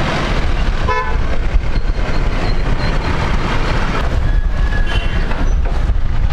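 Boeing 787-10 jet engines at low taxi power: a steady low rumble, with a short horn-like toot about a second in.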